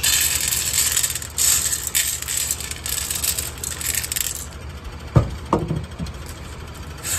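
Dry cat kibble poured from a plastic cup onto a metal tray, a rattling pour for about four seconds. About five seconds in come a few sharp knocks, and the rattling pour starts again right at the end.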